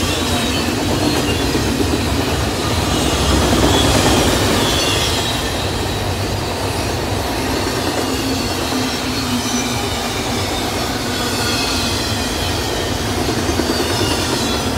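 CSX double-stack intermodal freight train rolling past at speed: a steady rumble and roar of steel wheels on the rails, with a faint high-pitched squeal from the wheels. The roar swells slightly around four seconds in.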